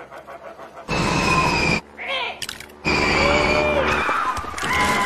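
Seagulls squawking and screaming, a string of loud cries that bend in pitch, starting about a second in.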